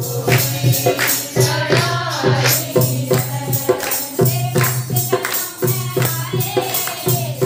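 Kirtan: devotional group singing, led by a man's voice, over a steady held low note, with hand clapping and percussion keeping a steady beat.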